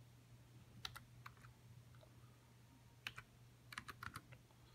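Faint keystrokes on a computer keyboard as a name is typed: a few taps about a second in, then a quicker run of taps around three to four seconds in, over a low steady hum.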